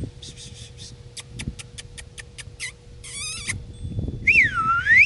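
A person calling a puppy with high squeaky kissing sounds: a few quick ones, then a run of evenly spaced squeaks at about five a second, a short warbling trill, and near the end a whistle that dips and then rises in pitch.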